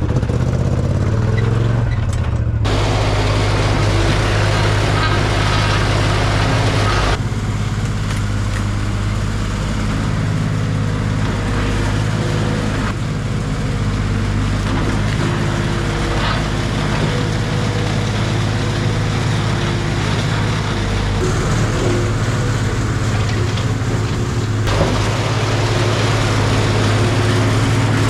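An engine running at a steady speed throughout, with several sudden jumps in the sound where the footage is cut.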